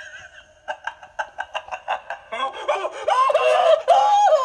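Gemmy animated vintage telephone prop playing a recorded laugh through its small, tinny speaker: a run of short staccato ha's, then longer drawn-out cackles from about halfway through.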